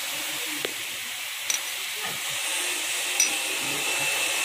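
Metal lathe running, a steady mechanical hiss, with three light metallic clicks.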